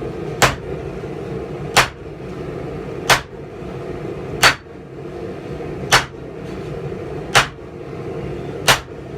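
Heavy hammer blows on hot steel over an anvil, seven strikes at an even pace of about one every second and a half, with a steady hum behind them.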